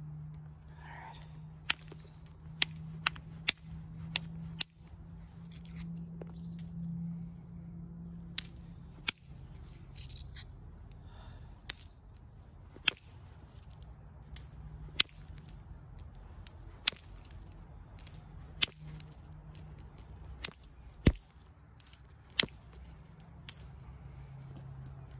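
Flint knapping: a copper-tipped billet strikes the edge of a large stone biface, knocking off flakes. There are about twenty sharp clicks at uneven gaps of half a second to two seconds, with a lull around five to eight seconds in.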